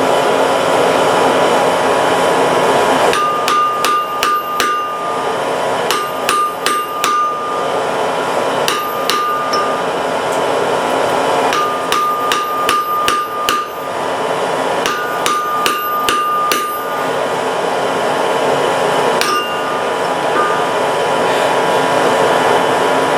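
Blacksmith's hammer striking hot iron on an anvil in about five runs of quick blows, each blow ringing, with a single blow later on, over a steady rushing noise.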